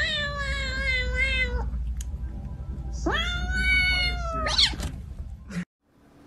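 Kitten meowing: two long meows about three seconds apart, the first sliding slightly down in pitch, the second rising then holding, and ending in a short high rising squeak.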